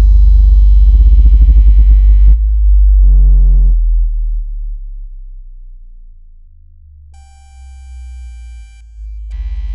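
Synthesized water-ejection tone track of very deep bass tones layered with mid and high pitched tones, made to vibrate earbud speakers so that they push out trapped water. A loud, pulsing deep bass with a stack of higher tones breaks off after about two seconds. A short wavering chord follows, then the deep bass fades into a quieter stretch with a few steady high tones, and a loud chord of tones comes back just before the end.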